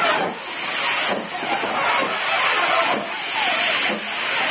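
Steam hissing from two Great Western 4-6-0 steam locomotives, Castle-class 5043 Earl of Mount Edgcumbe and Hall-class 4965 Rood Ashton Hall, as they reverse slowly. The hiss swells and dips about once a second.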